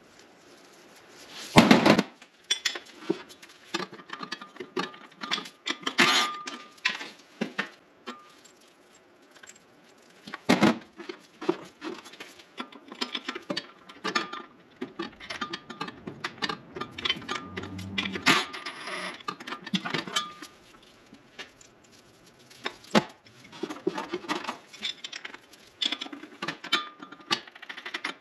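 Metal hand tools and bolts clinking and clicking against a car's underside, irregular taps with a few louder knocks and brief metallic rings, as fasteners are worked loose.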